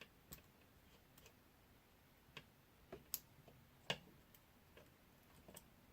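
Faint, irregular clicks and ticks of small parts being handled: the DJI Phantom 3 Pro gimbal's ribbon-cable connector and camera parts, about eight light clicks spread unevenly over a few seconds.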